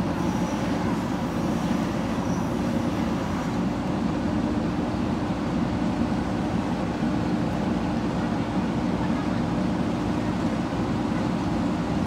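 JCB 3DX backhoe loader's diesel engine running steadily, with a constant low hum and no revving.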